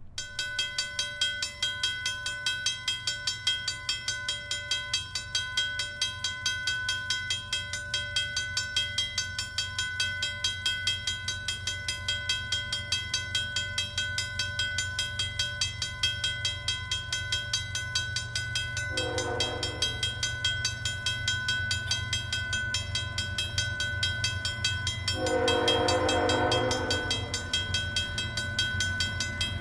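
Approaching CN freight train's diesel locomotives rumbling under a level-crossing bell ringing at about two strokes a second. The locomotive horn sounds twice: a short blast about two-thirds of the way in and a longer, louder one near the end.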